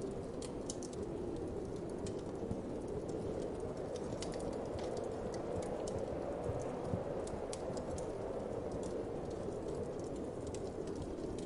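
Wood fire crackling, with irregular sharp pops and snaps over a steady low whoosh of wind.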